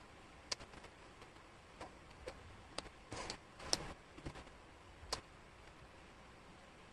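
Wooden jigsaw puzzle pieces clicking against one another and the tabletop as they are picked up and fitted: about eight light clicks, the loudest just before four seconds in, with a short sliding rustle around three seconds in.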